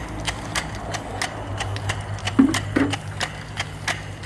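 Small brass c.1896 double-acting steam boiler feed water pump running on steam, ticking evenly about three times a second as it strokes, over a steady low hum. Two brief low thuds come a little past halfway.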